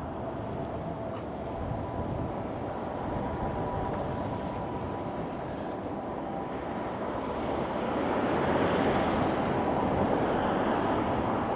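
Steady rumble of passing street traffic with a faint steady whine underneath, swelling louder about eight seconds in as a vehicle passes close.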